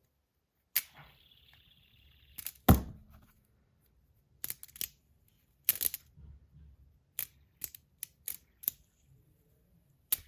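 Fidget spinner being handled and flicked: a string of sharp clicks and knocks, the loudest a knock with a short ring about three seconds in.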